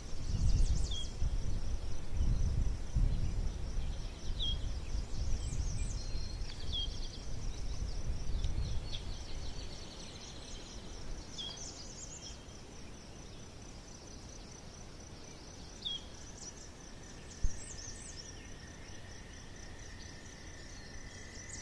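Outdoor woodland ambience: a steady high-pitched pulsing trill with scattered short bird chirps. A low rumble runs through the first half and fades about nine seconds in. A single sharp click comes in the second half.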